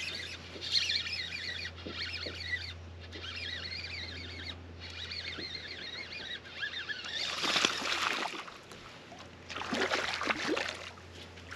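A hooked largemouth bass splashing and thrashing at the surface beside a boat, in two bursts about eight and ten seconds in. Under it runs a steady low hum that stops about eight seconds in, with faint high chirping through the first seven seconds.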